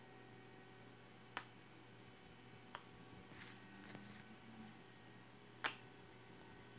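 Near silence: room tone with a faint steady hum and a few short clicks, the sharpest about two thirds of the way in.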